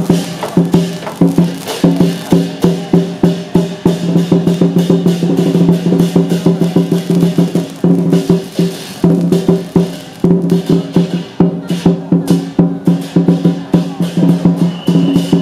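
Temple procession percussion music: quick, regular drum and wood-block strokes over steady low sustained tones.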